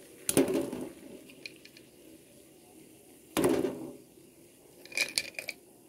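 Sea snail shells being dropped into a pot of boiling water, each landing with a splash and a knock in the aluminium pot: two loud ones about half a second and three and a half seconds in, then a short clatter of smaller knocks near the end.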